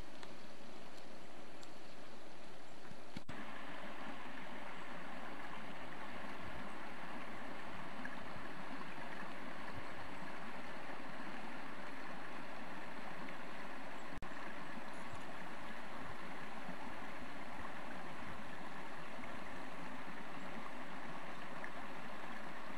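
Creek water running steadily at a beaver dam, a continuous rushing, with a brief break a little past the middle.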